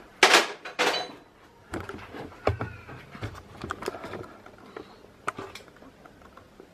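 Two short loud hissing bursts near the start, then scattered clicks and knocks of tools and lathe controls being handled. A cat meows faintly now and then.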